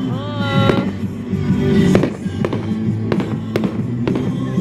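Aerial fireworks going off in a string of sharp bangs, several within a few seconds, with music playing underneath.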